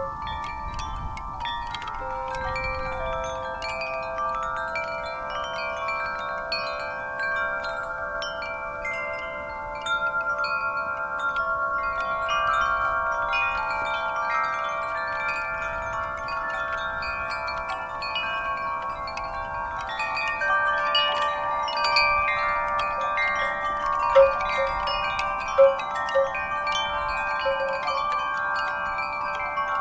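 Wind chimes ringing in a breeze: many overlapping tones struck at random and left to sustain, with a couple of sharper strikes about two-thirds of the way in.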